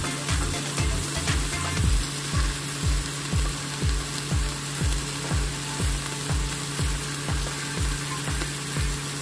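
Beef kebabs frying in shallow oil in a nonstick pan, a steady sizzle. Under it, background music with a low beat about twice a second.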